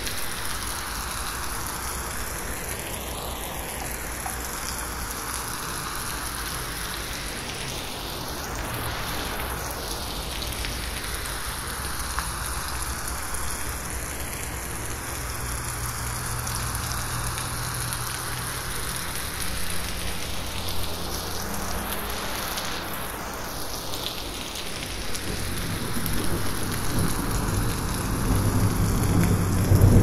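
Steady gentle rain falling on forest leaves, with a slow recurring phasing sweep from 8D processing. A low rumble of distant thunder swells near the end.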